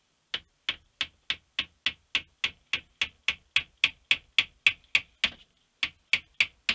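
Small hammer tapping steadily on a wooden dowel, about three quick light taps a second, driving a lubed lead slug down a Mosin-Nagant rifle's bore to slug it for its groove diameter.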